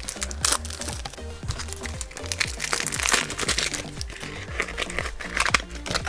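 Plastic toy packaging crinkling and crackling as it is handled and opened, over background music.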